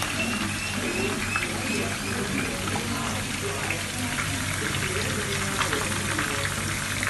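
Palm oil sizzling and crackling in a frying pan of onions and beef, scattered small pops over a steady low hum.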